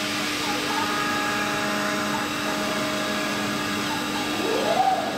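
Small five-axis CNC router carving a bust, its spindle running with several steady whining tones over a hiss of cutting. About four and a half seconds in, a brief tone rises and falls.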